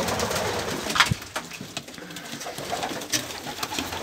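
Domestic racing pigeons cooing inside a loft, with a few sharp clicks and knocks, the loudest about a second in.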